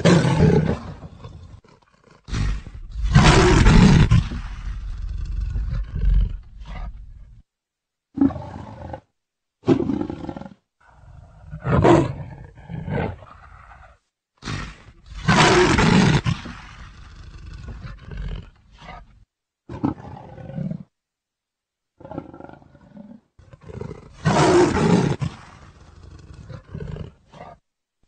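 Leopard calling: a series of loud roars, each one to two seconds long, with pauses of a few seconds between them.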